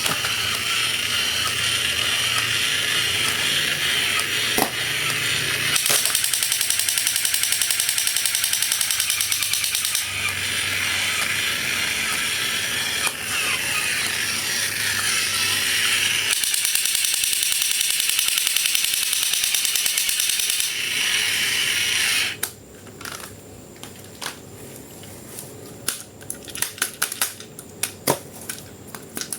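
Steady mechanical ratcheting and whirring with rapid fine ticking, changing character every few seconds, which stops about 22 seconds in and leaves scattered sharp clicks and taps.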